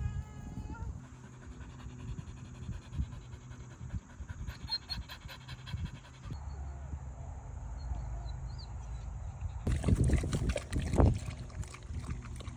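Dog panting rapidly in quick, even breaths. About ten seconds in, louder wet licking and lapping takes over as two dogs eat from a plastic bowl.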